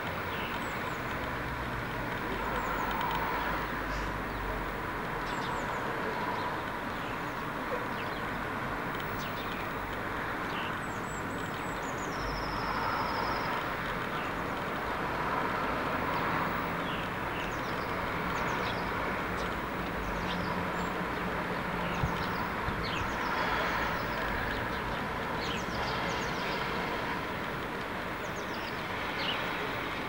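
Steady outdoor rumble of distant traffic, with small birds chirping at scattered moments and one short trill about twelve seconds in.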